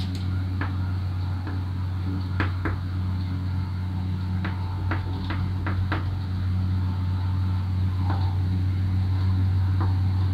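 Chalk tapping and scraping on a blackboard as lines are drawn: a series of short sharp clicks, several in quick succession around the middle, over a steady low hum.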